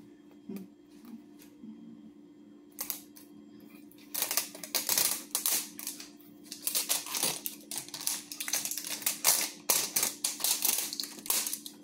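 Clear plastic shrink wrap being peeled and pulled off a Pokémon Go Ultra Ball tin, crinkling and crackling in quick irregular runs from about four seconds in, after a few soft clicks of handling. A faint steady low hum sits underneath.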